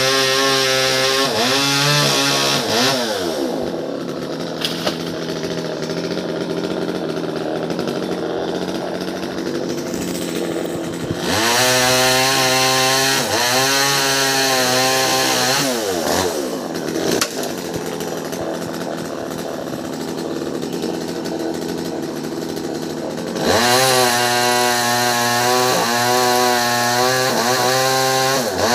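Two-stroke top-handle chainsaw alternating between full throttle and idle: it runs at high revs, drops to idle about three seconds in, revs up again about eleven seconds in, falls back to idle for several seconds, and revs up once more near the end.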